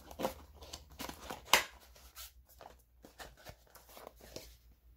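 Cardboard webcam box being turned over in the hands: a run of scrapes, taps and rustles of fingers on cardboard, the loudest a sharp knock about one and a half seconds in, stopping shortly before the end.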